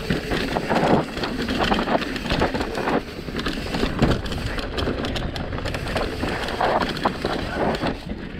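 Mountain bike descending a dirt downhill trail: tyres running over dirt and rocks, with a constant clatter of short knocks and rattles from the bike over rough ground, and wind buffeting the microphone.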